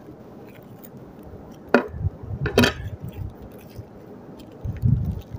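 Onions and a kitchen knife being handled on a ceramic plate: two sharp clinks against the plate about two seconds in, then a few dull low bumps near the end.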